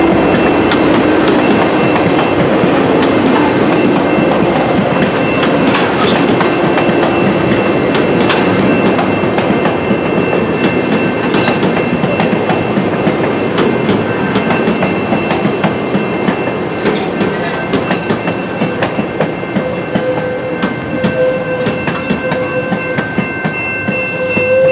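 A train's cars rolling past at close range: a loud steady rumble of wheels on rail, with many sharp clicks over the rail joints and thin high wheel squeals. The noise eases slightly over the last several seconds.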